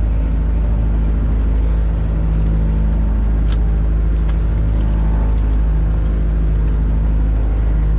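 Fishing boat's engine running steadily with a constant low drone, a few brief knocks in the middle as crab pots are handled at the rail.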